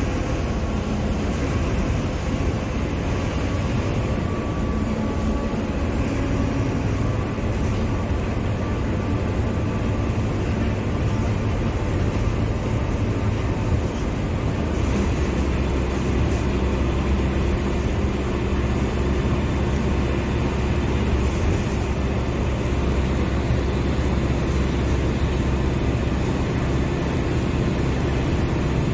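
Mercedes-Benz OF-1721 bus's diesel engine running steadily, growing slightly louder and deeper about halfway through.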